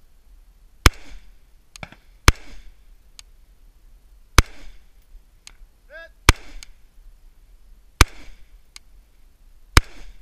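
Six rifle shots fired at a slow, steady pace, roughly one every one and a half to two seconds, each with a short echo. Fainter ticks come between some of the shots.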